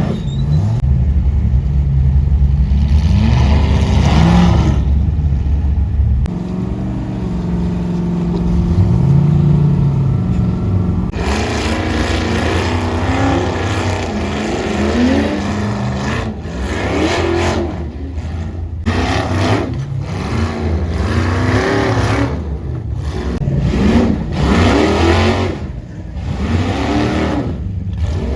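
Ultra4 rock-racing buggy engines working through a rocky bottleneck. A steady low engine drone gives way, about a third of the way in, to many short rev bursts rising and falling in pitch.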